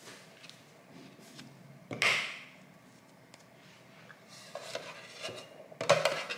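Kitchenware being handled on a counter: a sharp clatter about two seconds in that rings briefly, some rustling, and another loud knock near the end.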